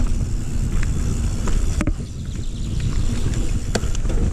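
Mountain bike rolling fast over a dirt forest trail, heard as a steady rumble of wind buffeting the bike-mounted camera's microphone and tyre noise, with a couple of sharp clicks from the bike.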